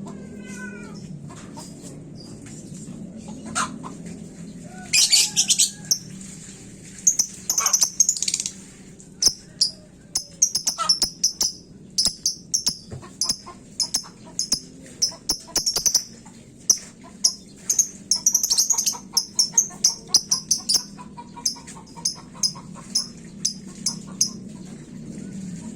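Lovebird singing: long runs of rapid, shrill, high-pitched chirps, several a second, starting about five seconds in and continuing almost to the end.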